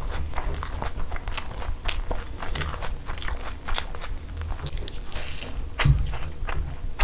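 Close-miked chewing of puri and spicy egg masala: a quick run of wet mouth clicks and squelches, with a louder bite about six seconds in.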